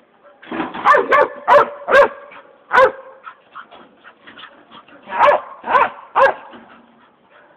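A dog barking excitedly in short, sharp barks: five in the first three seconds, then three more in quick succession around five to six seconds in.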